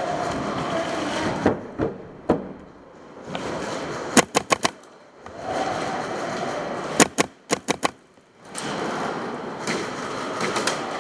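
Airsoft guns firing: two short rapid bursts of sharp pops, about four seconds in and about seven seconds in, with a few single shots before them, over a steady background din.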